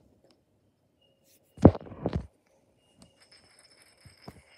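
Small plastic Lego spinning top clattering on a tile floor: two sharp clicks about a second and a half and two seconds in, then a few faint ticks as it wobbles on its rim.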